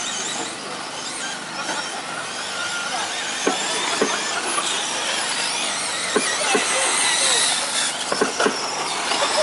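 Radio-controlled short course trucks racing on a dirt track: a whine from their motors that rises and falls, with several sharp knocks in the second half.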